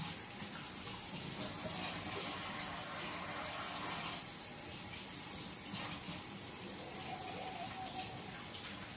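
Kitchen tap running steadily into the sink, turned on at the start and shut off near the end.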